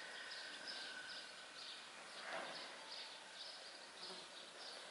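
Faint outdoor ambience with a soft, high chirping repeating about twice a second, and one brief louder sound a little over two seconds in.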